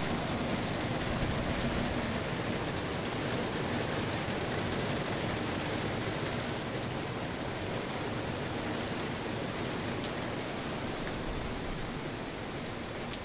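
Steady summer rain falling on garden foliage and wet paving: a constant even hiss with faint scattered drop ticks.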